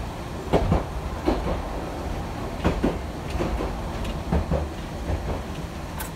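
Hankai Tramway streetcar running along its track, heard from the cab: a steady low rumble with sharp clacks, mostly in quick pairs, as the wheels pass over rail joints several times.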